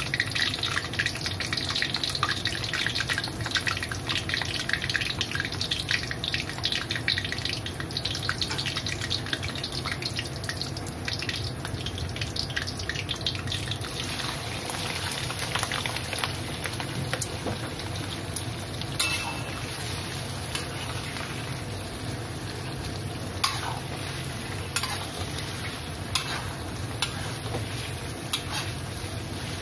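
Oil crackling and sizzling in a wok as sliced garlic and red chillies fry. About halfway, raw whole prawns are tipped in and the crackle softens to a quieter sizzle. Later a metal spatula knocks against the wok a few times.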